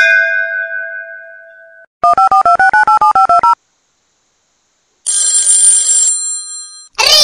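A bell-like chime rings out and fades, then a mobile phone ringtone plays: a quick two-note warbling trill for about a second and a half, followed by a brighter electronic ring tone of about two seconds. An incoming call, answered just after.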